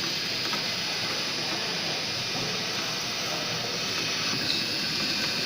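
CNC machine running steadily: a constant hiss with a thin, steady high whine over it.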